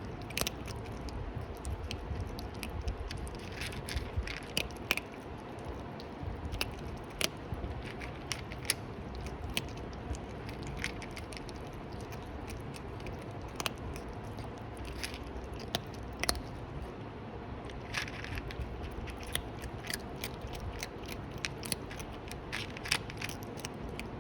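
A cat chewing crunchy food close to the microphone: irregular crisp crunches and clicks, in quick clusters at times, over a low steady hum.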